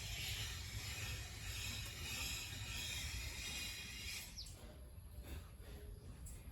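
A steady, hissing noise with a low rumble underneath, which cuts off abruptly about four seconds in.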